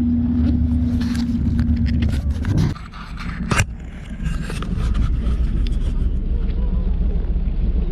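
Motorboat engine running with a steady low hum. About two and a half seconds in the camera is handled: the hum drops away under rubbing and a sharp knock. A low engine rumble then carries on.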